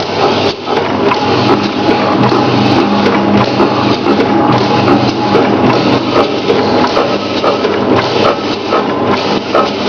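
Nastar dough-forming machine running: a steady motor hum under a dense, continuous mechanical clatter.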